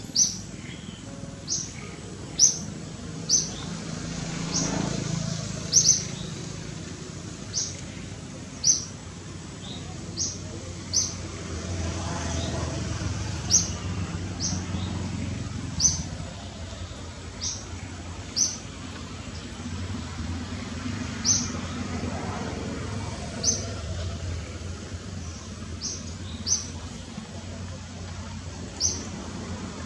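A bird's short, high chirps, repeated roughly once a second at an uneven pace, over a low rumble that swells and fades a few times.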